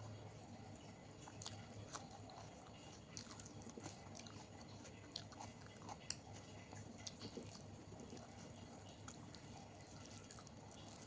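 Faint close-up eating sounds: a person chewing a mouthful of soft, wet food, with scattered small mouth clicks and squelches.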